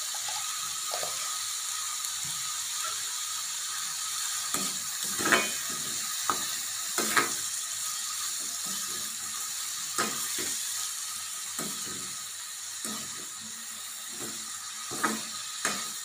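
Sliced vegetables and ridge gourd peel frying in oil in a metal pan, a steady sizzle. A spoon knocks and scrapes against the pan about ten times while stirring, loudest about five, seven and fifteen seconds in.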